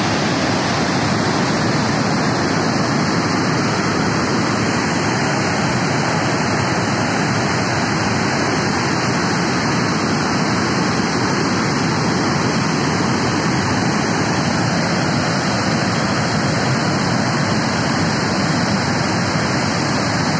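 The Yamuna river in flood after torrential rain, a churning torrent rushing past with a loud, steady noise of water that does not let up.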